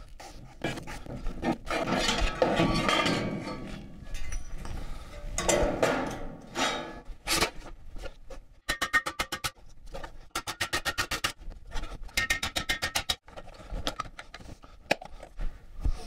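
Hand work on sheet steel: rough scraping bursts, then runs of quick, evenly spaced metallic strikes, several a second, in the second half.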